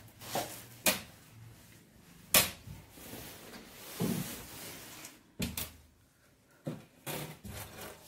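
Handling noise from work on an electric room heater: a string of sharp clicks and knocks of small metal parts and tools, the loudest about two and a half seconds in, with rustling in between.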